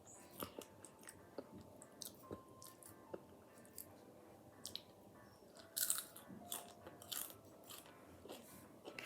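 Potato chips being bitten and chewed: irregular crisp crunches, the loudest about six seconds in.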